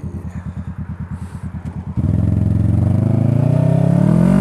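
Kawasaki motorcycle engine idling with an even, pulsing beat. About halfway through it gets suddenly louder, and its pitch climbs steadily as the bike accelerates away.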